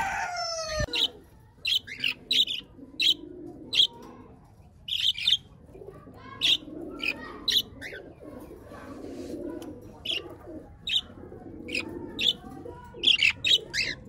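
Budgerigars chirping in short, sharp calls scattered through, with pigeons cooing low underneath. A long falling call sounds right at the start.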